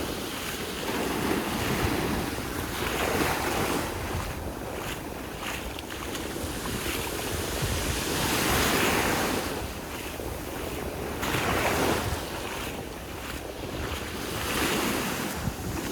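Sea waves breaking and washing up on a sandy beach, the surf swelling and falling every few seconds, with wind buffeting the microphone.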